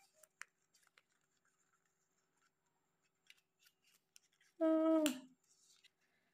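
Faint paper crinkles and small clicks as a sheet of origami paper is folded and creased by hand. A short voiced sound from a person, a murmur rather than words, comes about three-quarters of the way in.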